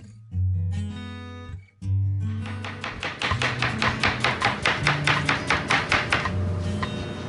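Kitchen knife chopping fast on a cutting board, even strokes about five a second, starting about two seconds in and stopping near the end, over acoustic guitar music.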